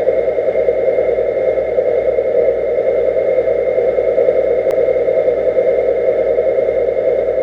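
Steady, muffled mechanical drone picked up by a camera underwater, like an engine heard through the water, with one faint click about halfway through.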